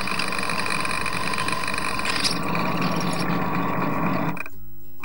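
Bench drill press running steadily as its twist bit drills a hole through a steel angle bracket. The sound cuts out briefly just before the end.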